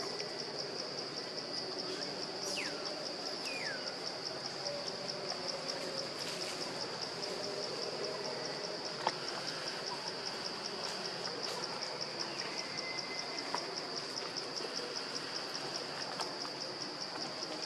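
Chorus of insects in the forest canopy: a steady high-pitched trilling drone that pulses evenly, about four or five pulses a second. Two short falling whistles sound about three seconds in.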